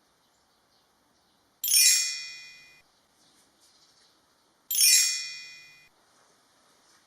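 Two identical bright chime dings about three seconds apart, each ringing with many high overtones and fading for about a second before cutting off.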